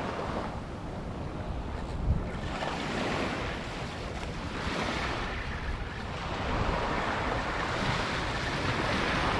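Small waves breaking and washing up a sandy beach, swelling and falling back every few seconds, with wind rumbling on the microphone.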